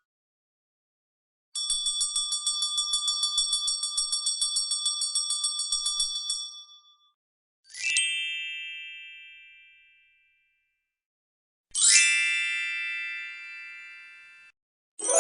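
Struck metal bell dings from a sound-effect library. First comes a rapid run of ringing strikes lasting about five seconds, then two single ringing dings that each die away slowly, and another strike right at the end.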